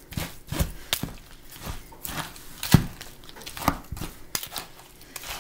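A spoon stirring thawing frozen peaches in a plastic tub: irregular clicks and knocks of the spoon against the tub and the fruit, with one sharper knock about midway.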